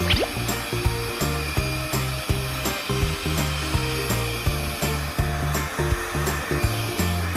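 Window-cleaning robot's suction fan running steadily, under background music with a steady beat.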